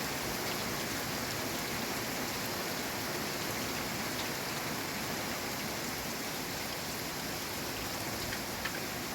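Steady rain falling on surfaces, an even hiss with a few distinct drops ticking near the end.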